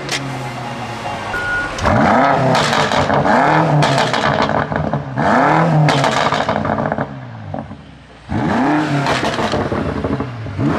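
BMW M5 F90's twin-turbo V8 revved hard in Sport mode, about four throttle blips each rising and falling in pitch, through an exhaust with only the rear muffler swapped, giving a wide bass note.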